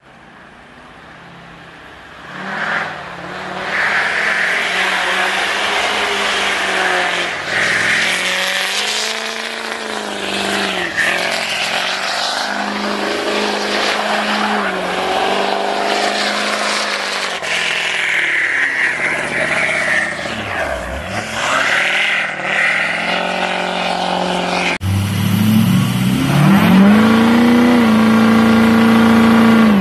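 Lifted Chevrolet Silverado pickup's engine revving up and down, over a hiss, as it spins donuts through deep snow. About 25 seconds in it cuts to a lifted Ford Super Duty pickup doing a burnout, its engine climbing and then held at high revs while the rear tires spin and smoke.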